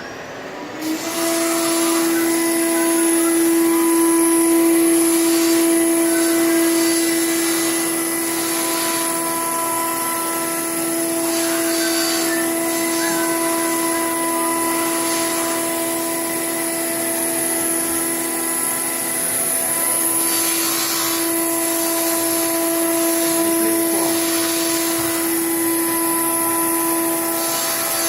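CNC router's high-speed spindle running with a steady high whine, rising to speed about a second in.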